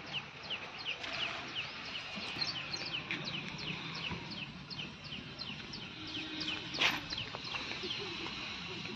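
Birds chirping in a steady run of short, falling high chirps, several a second. About seven seconds in there is one brief rustling burst.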